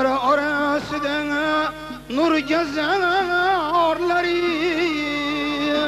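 Male voice singing a melismatic Khorezmian folk vocal line, holding long notes with a wide, wavering vibrato and breaking for breath twice, with a tar accompanying.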